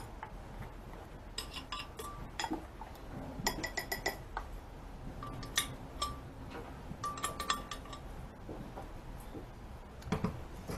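A metal spoon clinking and scraping against a glass blender jar while thick blended salsa is scraped out. The taps come in several quick clusters spread through, each leaving a short ringing tone.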